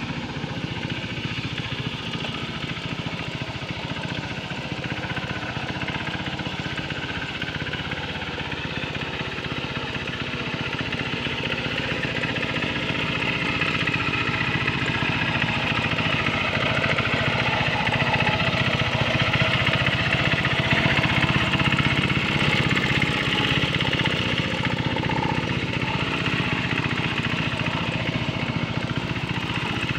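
Small engine of a Quick Capung Metal two-wheel hand tractor running steadily under load as it pulls a harrow through wet paddy mud, growing louder about halfway through.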